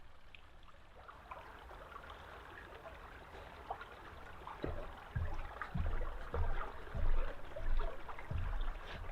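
Footsteps on a woodland path, starting about halfway through at a steady walking pace, over a faint steady rushing sound.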